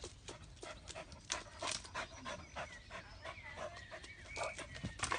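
An excited dog panting in quick, hard breaths, with a few thin high whines as it leaps at a tree after a squirrel.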